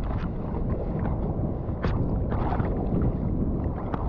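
Sea water sloshing and splashing around a bodyboard as it is paddled through choppy shallows, with wind rumbling on the microphone; sharper splashes stand out now and then, one clearly about two seconds in.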